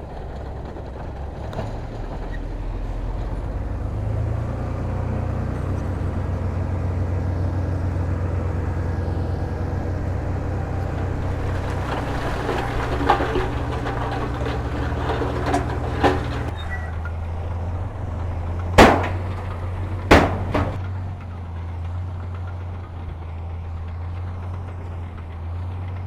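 Heavy diesel construction machinery running steadily, its engine working harder from about four seconds in. Two short, sharp bursts about a second and a half apart come through past the middle.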